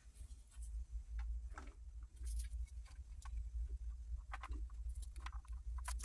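Scattered light clicks and taps as a 1:24 scale model Chevy Silverado and its plastic wheels are handled and turned over in gloved hands, over a low steady hum.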